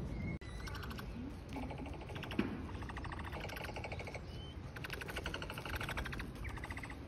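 Short bouts of rapid clicking chatter, each lasting about half a second to a second, with a few brief chirps between them, over a steady outdoor background.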